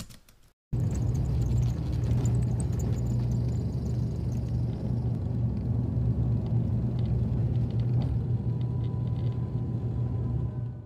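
Propeller aircraft engines at takeoff power, heard from inside the cabin as a steady, loud drone with a strong low hum over rushing noise during the takeoff roll and climb-out. It starts abruptly about a second in.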